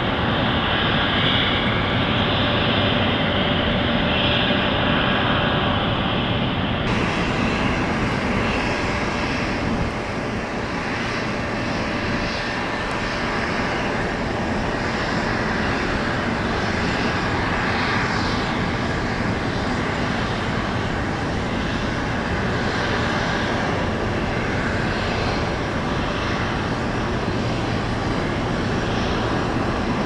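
Jet aircraft engines running steadily, a continuous rushing noise whose tone shifts about seven seconds in.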